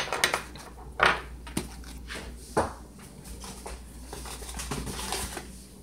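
Several short knocks and clatters of kitchen things being handled and set down on a wooden counter in the first few seconds, then a faint rustle as a cornstarch box and its bag are handled.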